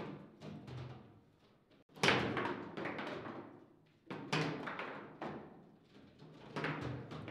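Table football being played: sharp knocks and clacks of the ball and rods against the table. The loudest knock comes about two seconds in, followed by several more hard knocks later on.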